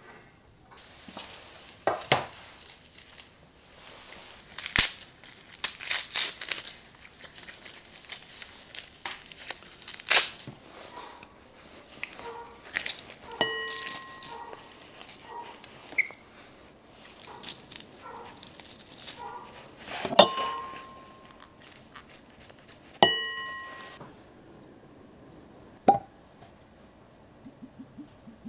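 Crinkling and crunching of garlic being handled and squeezed through a metal garlic press, with sharp clicks along the way. Three times the press clinks against a glass bowl and rings briefly.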